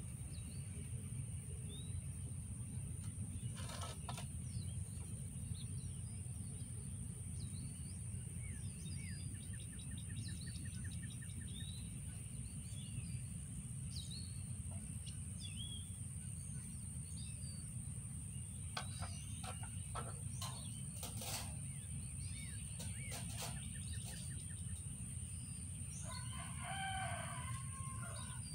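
Outdoor ambience of small birds chirping over a steady low rumble and a steady high-pitched whine, with a few sharp taps. Near the end a rooster crows once, for about two seconds.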